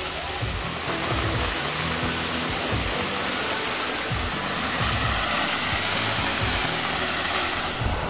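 Steady rush of a 21-metre waterfall plunging into a shallow rock pool, with background music beneath it.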